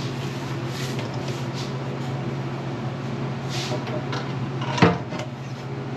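Fuel pump and gasket being handled at a fuel cell, with soft rustles and one sharp knock about five seconds in, over a steady low hum.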